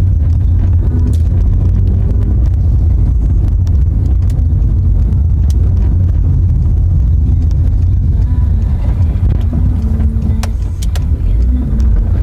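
Car cabin noise while driving: a loud, steady low rumble of engine and road noise, with a few light clicks.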